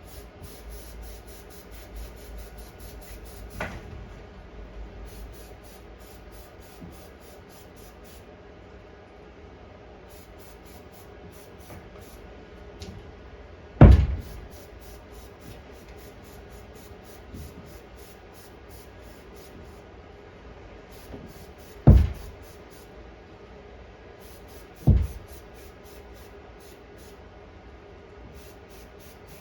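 Three sharp knocks, the loudest sounds here, spread across several seconds, the last two about three seconds apart, over a faint steady hum.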